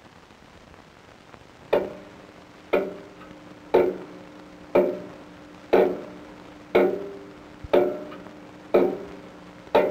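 Opening film music: after a second or two of faint hiss, a struck, ringing pitched chord repeats about once a second, each one fading before the next.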